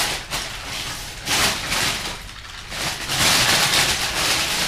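Rustling noise that swells and fades several times, loudest from about three seconds in.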